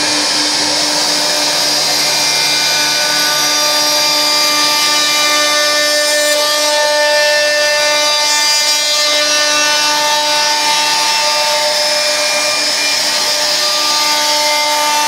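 CNC router spindle with its bit cutting grooves into a wooden board: a steady whine of several held pitches over the noise of the cut, running evenly throughout.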